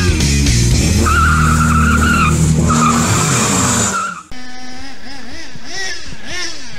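An engine held at high revs with a tyre squeal for about four seconds, then, after a sudden cut, a small nitro RC truck engine revving up and down in quick repeated bursts.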